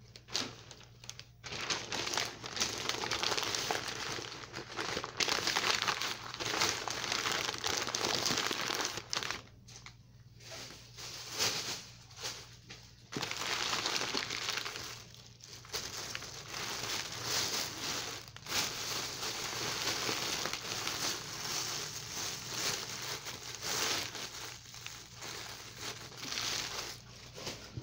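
Newspaper crinkling and rustling as leafy greens are wrapped in it, in spells broken by short pauses; near the end a thin plastic bag crinkles.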